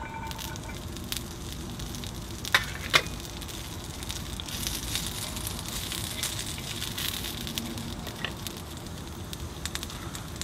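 Food sizzling on a cast-iron griddle over a campfire, with scattered crackles and two sharp pops about two and a half and three seconds in. The sizzle grows stronger about halfway through.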